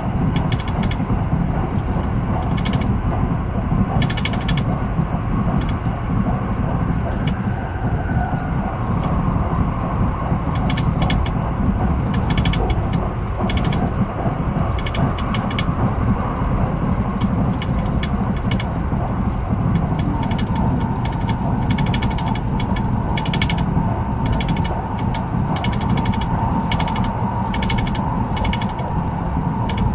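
Haruka airport express train running at speed, heard on board: a steady rumble from the running gear with frequent clicking and rattling. A faint steady whine comes in about two-thirds of the way through.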